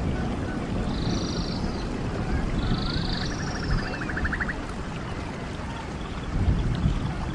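Stream water running steadily, with birds singing over it: three short high calls spaced a few seconds apart, and a rapid trill around the middle.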